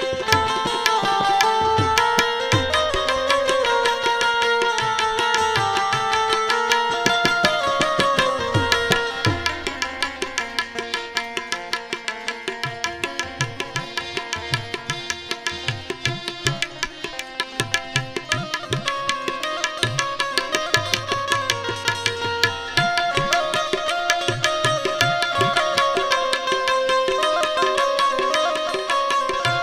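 Instrumental Gujarati bhajan music: a melody on held notes over a quick, steady hand-drum rhythm, with deep bass drum strokes now and then.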